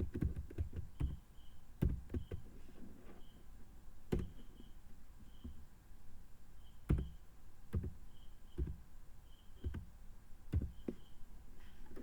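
Keystrokes on a computer keyboard: irregular knocking clicks, some single and some in quick clusters, each with a low thump. A faint high chirp repeats about once a second behind them.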